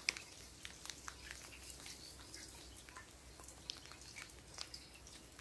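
Faint outdoor background hiss with scattered soft clicks and ticks, no single clear source.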